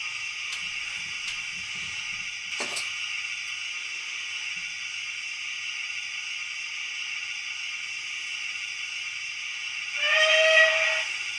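Sound decoder of a 00 gauge DCC-sound model steam locomotive, giving the steady hiss of a steam engine standing in steam, with a single click a couple of seconds in. About ten seconds in comes a short whistle blast lasting about a second.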